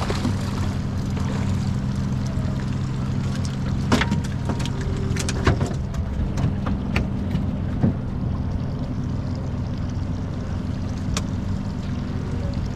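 A boat's motor running steadily with a low hum, with a few sharp knocks and clicks from handling on the boat about four to eight seconds in.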